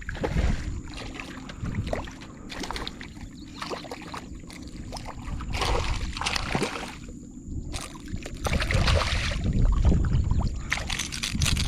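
Water sloshing against a kayak, with scattered knocks and handling noises.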